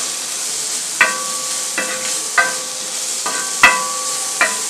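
Sliced onions and capsicum sizzling in butter on a hot tawa with a steady hiss. A spatula stirring them clanks against the pan about six times, each strike ringing briefly; the loudest comes about two-thirds of the way in.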